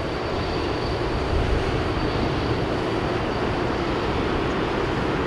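Airbus A380's four Rolls-Royce Trent 970 turbofans running at low thrust as the jet taxis, a steady rumbling rush with a thin high whine that fades out about halfway through.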